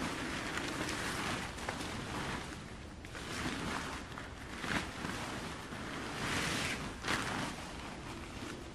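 Wind gusting through the forest trees in rising and falling swells, with wind buffeting the microphone, and two brief sharper peaks about five and seven seconds in.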